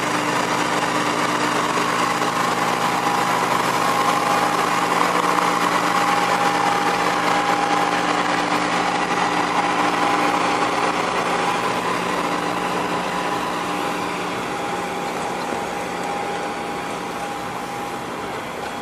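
Engine of a 15-inch-gauge diesel locomotive running steadily as it hauls a train of coaches away, a constant hum with a held whine. It slowly fades over the last several seconds.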